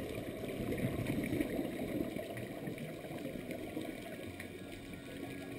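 Muffled underwater rumble picked up through a GoPro Hero 2's sealed waterproof housing, dull and low with a few faint ticks. A steady low tone comes in near the end.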